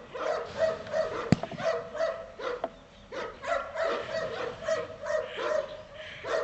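A Cane Corso barking in a quick run of short barks, with a brief pause about halfway through, as it lunges on the leash during bite-work training. A single sharp click a little over a second in.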